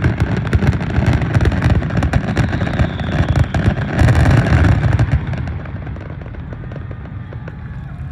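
Aerial fireworks going off in a rapid, dense barrage of bangs and crackles over a deep rumble, loudest about four seconds in, then dying away after about five seconds.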